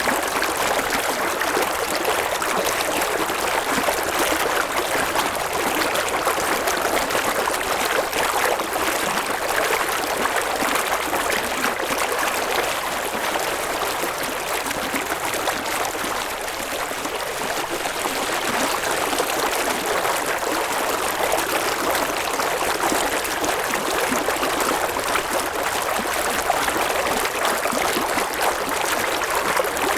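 River water running steadily over stones, a continuous even rush with small splashing and trickling.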